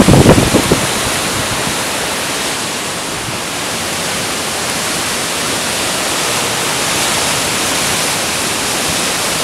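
Storm wind making a steady, loud rush, with heavy gusts buffeting the microphone in the first second.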